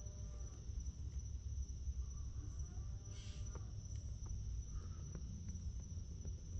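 Insects trilling steadily at one high, even pitch, over a low rumble, with a short hiss about three seconds in.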